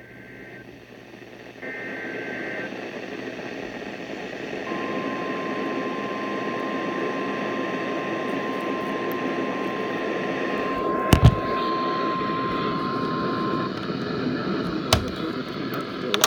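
NOAA Weather Radio alert for a severe thunderstorm warning. Short bursts of the buzzing digital SAME header tones open it, then the steady 1050 Hz warning alarm tone holds for about nine seconds. Throughout there is a loud rushing hiss, with a couple of sharp knocks about 11 and 15 seconds in.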